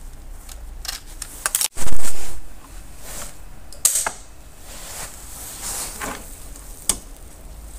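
Plastic clicks and knocks from a small 3D-printed toy cap cannon being handled and reset, with one much louder bang about two seconds in.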